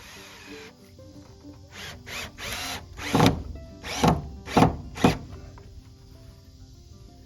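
A power drill running in a series of short bursts, each a fraction of a second long and some rising or falling in pitch, over background music.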